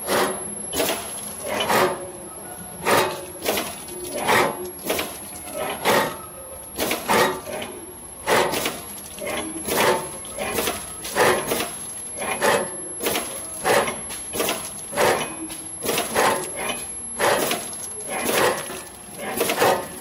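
Clay extruding and cutting machine running, with repeated clacks about one to two a second and a faint steady high-pitched whine.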